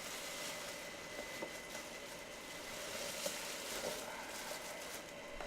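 Quiet room tone: a steady hiss with a faint even hum, and a few soft clicks.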